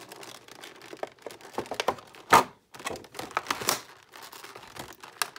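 Stiff clear plastic clamshell packaging crinkling and crackling as it is pulled apart and handled, with one loud sharp crack about two seconds in.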